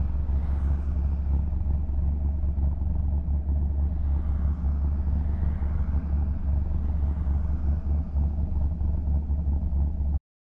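LS V8-swapped Nissan 350Z under way at an even pace, its engine and road noise making a steady low drone with no clear revs. The sound cuts off abruptly near the end.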